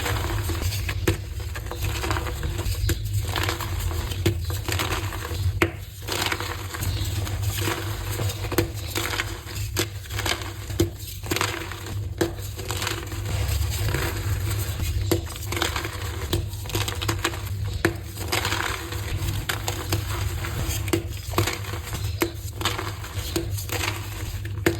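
Blocks of gym chalk being crushed and crumbled, a dense irregular run of crisp crunches over a low steady hum.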